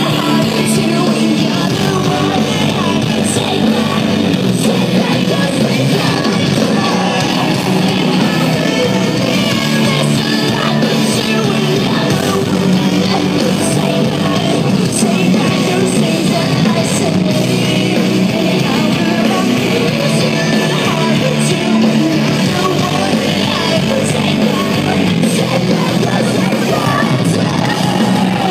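A live rock band playing loudly, with singing over electric guitars and drums, picked up on a phone microphone from the crowd.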